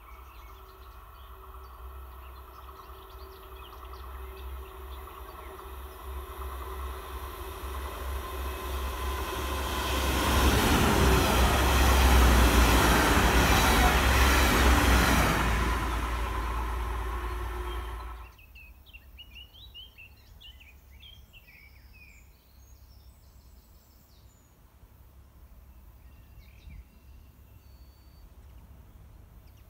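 DSB MF (IC3) diesel multiple unit passing at speed: engine and wheel rumble builds over about ten seconds, is loudest as the train goes by, then stops abruptly. Afterwards birds chirp over a faint background.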